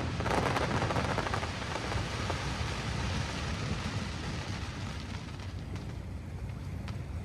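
Crackling fireworks: a dense hail of crackle that starts just after the last bursts and thins out over about five seconds, with a couple of lone pops near the end.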